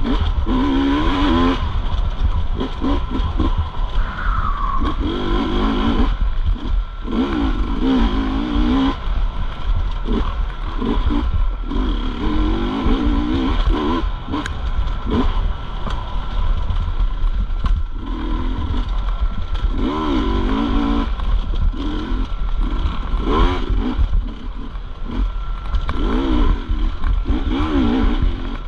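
Dirt bike engine racing over rough ground, revving up and falling back over and over as the throttle is worked, over a heavy low rumble.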